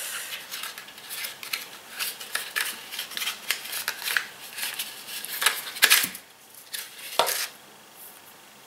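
Small clicks and rustles of an eyebrow pencil and its plastic packaging being handled, with a sharper pair of clicks about six and seven seconds in.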